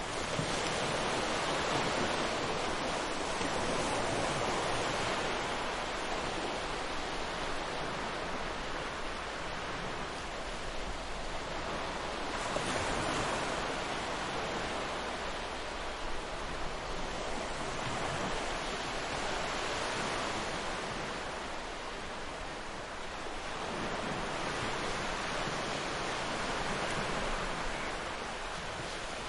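Ocean surf: waves breaking and washing up a beach. The wash swells and fades every several seconds.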